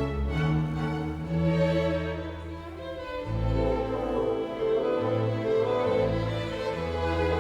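Background music played by bowed strings, violin with low cello or bass notes that change every second or so.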